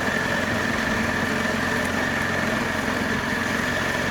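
Kubota combine harvester's diesel engine running steadily, with a steady high whine over the engine note.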